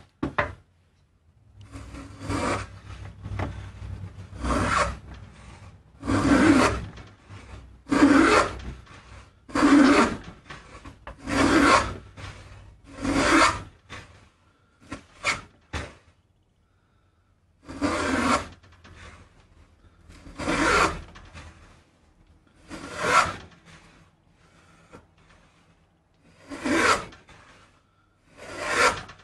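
Antique D R Barton wooden plow plane cutting a groove along the edge of a wooden board, one rasping stroke after another. There are about fourteen strokes, one every one and a half to two seconds, with a short break near the middle.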